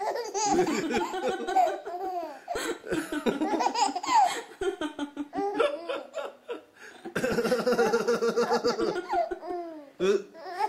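A baby laughing hard in repeated high-pitched fits, with a short lull about six seconds in before a long unbroken run of laughter.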